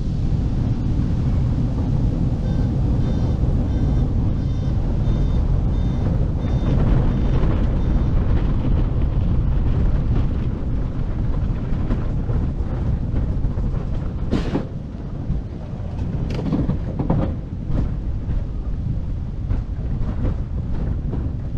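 Velomobile rolling along the road: a steady low rumble of tyres and wind on the shell, with several sharp knocks from bumps in the second half.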